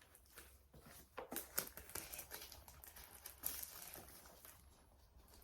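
Packaging being handled and unwrapped: faint, irregular crinkling and rustling with scattered small clicks.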